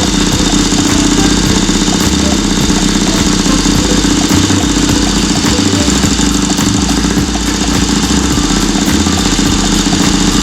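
Rebuilt 1967 Triumph 650 parallel-twin engine, bored out with a 750 kit, running steadily at idle.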